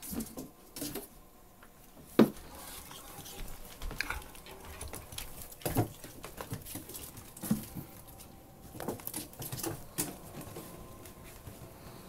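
Ferrets scampering on a tiled floor: scattered light taps and patter of paws and claws, with a sharp knock about two seconds in and a few more knocks later.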